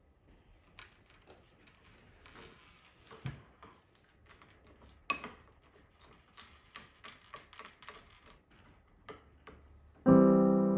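Faint, scattered light clicks and taps of household objects being handled. Near the end a loud piano chord starts suddenly and rings on.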